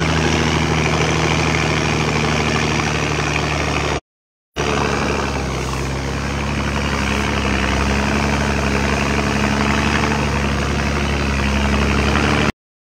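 An engine running steadily at a low idle-like pitch, under a constant hiss. The sound breaks off for half a second about four seconds in.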